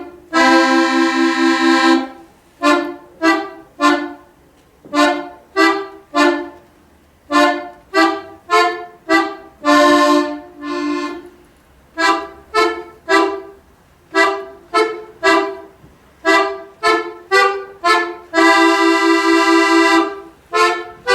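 Accordion playing an exercise in thirds staccato: short, detached double notes in a quick even run, moving through sequences from the white keys. Three times, near the start, about halfway and near the end, a longer chord is held.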